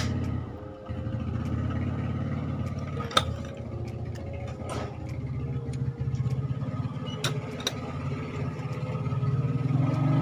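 A motor engine running steadily, with a few sharp metal clicks from small engine parts being handled.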